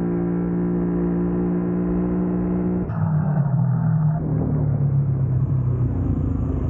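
Utility ATV engine running close by at a steady pitch. About three seconds in it changes abruptly to a louder, rougher running sound with a lower, wavering pitch.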